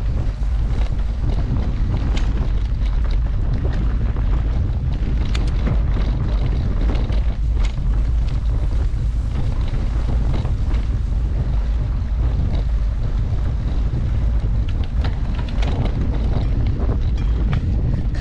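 Wind buffeting the microphone during a mountain-bike ride, a steady rumble, with frequent clicks and rattles from the bike throughout.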